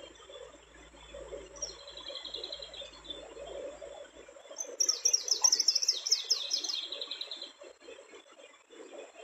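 A bird calling high and thin: a short trill about two seconds in, then a louder run of quick down-slurred notes lasting about three seconds, over a steady low rumble.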